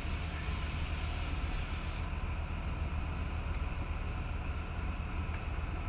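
Fishing boat's engine running steadily, a low hum, with a high hiss over it that cuts off about two seconds in.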